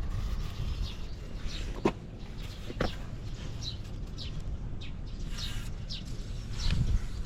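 Small birds chirping: repeated short, falling chirps, over a steady low rumble, with a couple of sharp clicks about two and three seconds in.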